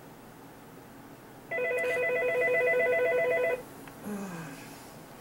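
Office desk telephone's electronic ring: one fast-warbling trill about two seconds long, starting about a second and a half in.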